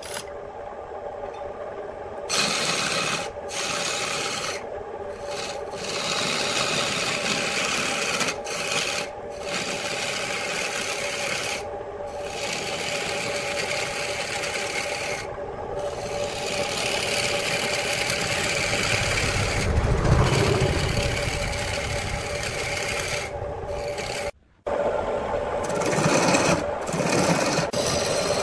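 Electric wood lathe running with a steady motor hum while a hand-held turning tool scrapes the spinning wood blank. The cutting noise comes in passes, stopping for a moment every few seconds. The sound cuts out briefly about three-quarters of the way through.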